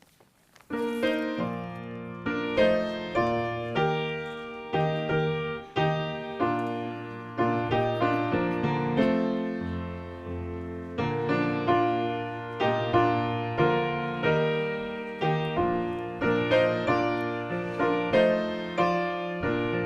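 Piano playing a slow piece of chords with held bass notes, starting about a second in.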